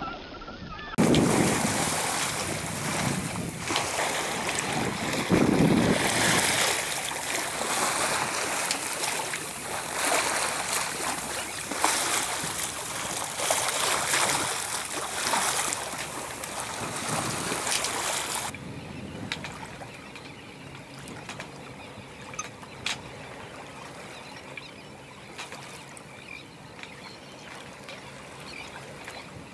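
Wind buffeting the microphone over water rushing and splashing past a small sailboat under way. About eighteen seconds in it drops suddenly to a quieter wash of water with a few light knocks.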